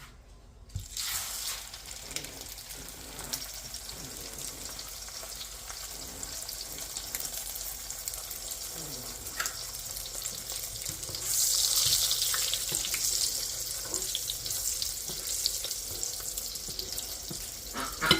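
A chicken-topped tortilla sizzling in hot bacon grease in a frying pan. The sizzle starts suddenly about a second in, as it goes into the grease, with small crackles throughout, and it swells louder past the middle.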